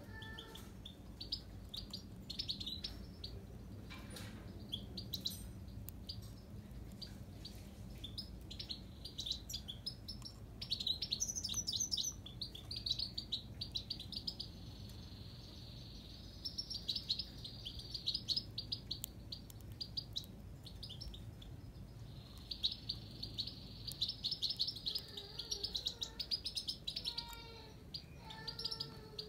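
Himalayan (grey-crowned) goldfinch singing: long runs of rapid, high twittering chirps and trills with short breaks, and a few lower, falling notes near the end.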